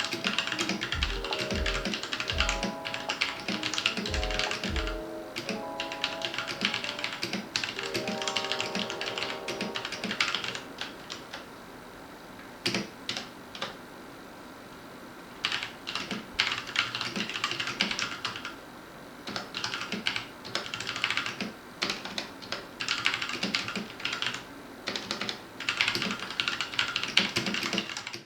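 Typing on a Royal Kludge RK68 mechanical keyboard with brown switches: fast runs of key clicks in bursts, thinning to a few scattered keystrokes for a few seconds near the middle before the fast typing resumes. Background music with a bass beat plays under the first third.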